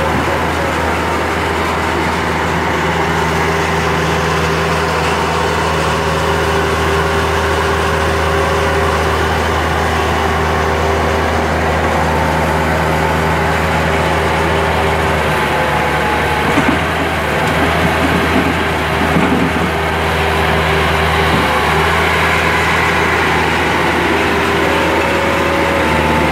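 Bobcat T250 compact track loader's diesel engine running steadily under load as it works a bucket of compost. A little past halfway, a stretch of uneven knocking and rustling breaks in as the load is tipped out of the bucket.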